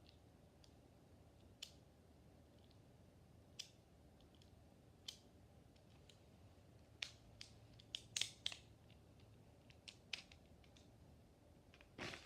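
Faint, scattered light clicks and taps from a Beyblade's small plastic parts being handled, coming more often about seven to eight and a half seconds in, with a short rustle near the end.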